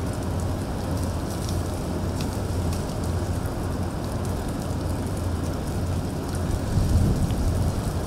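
Wind buffeting the microphone: a steady, loud rushing noise with a deep rumble underneath.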